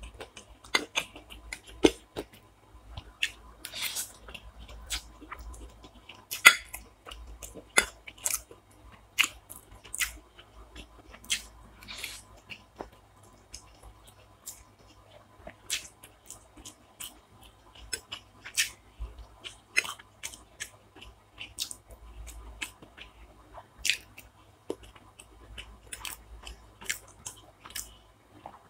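A person chewing and biting food close to the microphone: a steady run of short, sharp, irregular mouth clicks and smacks, the loudest about six and a half seconds in.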